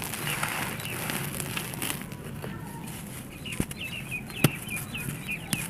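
Dry red soil and charcoal-ash clumps crumbling in bare hands, grit sifting and rustling, with a few sharp cracks as chunks break. In the second half a bird cheeps in a quick run of short calls in the background.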